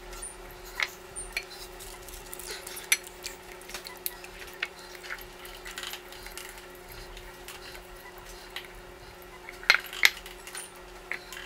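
Light clicks and taps of glass as hands toss chicken wings in a glass bowl of crushed ghost pepper chips, with a couple of louder glass clinks about ten seconds in as coated pieces are laid in a glass baking dish.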